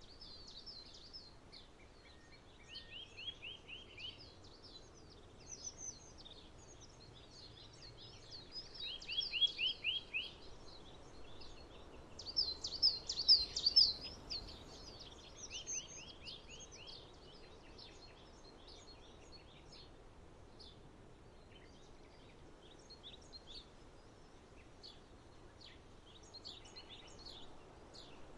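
Small songbirds singing and chirping throughout, with a short fast trill of rapidly repeated notes coming back three times. The loudest bursts of song come about a third and halfway through, over a faint steady background hum.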